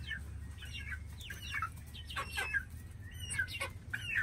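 Two-month-old chicks calling: a string of about eight short, falling notes.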